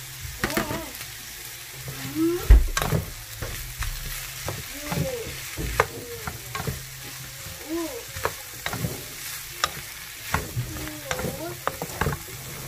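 Chicken, onion, carrot and bell pepper strips sizzling in a nonstick frying pan as a wooden spatula stirs and tosses them, with irregular scrapes and taps of the spatula on the pan. A louder knock comes about two and a half seconds in.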